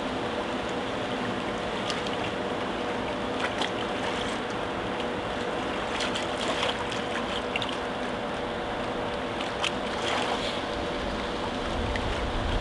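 Seawater washing and lapping against concrete steps: a steady rush with scattered small splashes and drips, over a faint steady hum.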